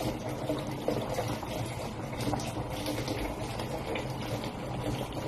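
Steady sound of water, with a low hum underneath and a few faint ticks.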